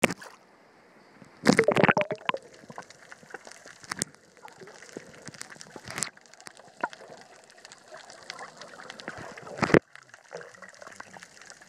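Water splashing as the camera dips under the surface, about a second and a half in. Then comes muffled underwater sound: a faint hiss scattered with many small clicks and crackles. Another loud splash-like burst comes near the end.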